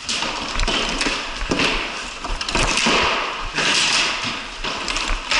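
Ball hockey play on a concrete floor: a string of quick knocks and taps from sticks and ball, with thuds and scuffing noise that swells and fades several times.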